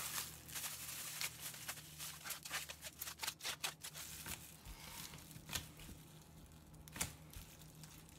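Thin plastic bag crinkling and crackling in the hands as the air is squeezed out of a bag of cubed daikon kimchi and the bag is pressed flat. Faint, a quick string of short crackles, thickest about three to four seconds in.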